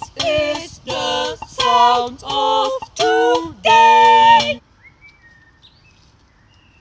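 Women's voices singing six short held notes, one after another; the singing stops suddenly about four and a half seconds in, leaving only a few faint chirps.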